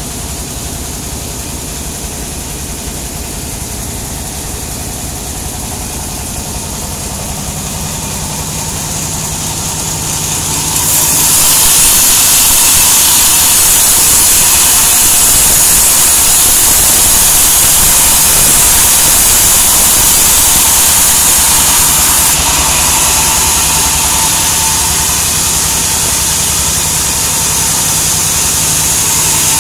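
Band sawmill running without cutting: a steady machine hum, joined about a third of the way in by a loud, even high hiss that stays to the end.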